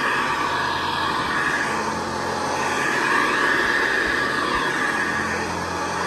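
Hoover Convertible Model 704 upright vacuum cleaner running steadily while pushed over carpet, its motor and fan pitch shifting slightly as it moves back and forth.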